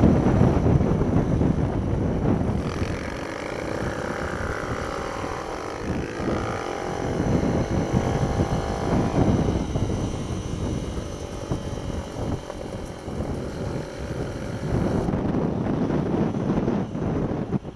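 Mini-bike engine ridden hard around a track, its pitch rising and falling between about 3 and 9 seconds in, under heavy wind noise on the on-board microphone.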